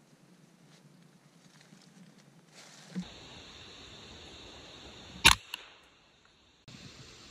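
A scoped rifle fires a single sharp shot about five seconds in, followed a quarter second later by a fainter crack, over a steady outdoor hiss.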